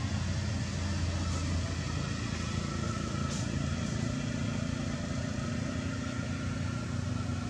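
A motor vehicle engine running steadily, a constant low hum with no change in pace.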